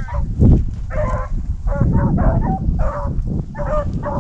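A pack of rabbit hounds baying on a hot rabbit trail: many short calls several a second from more than one dog, overlapping. Under them is a low rustle of footsteps through tall dry grass.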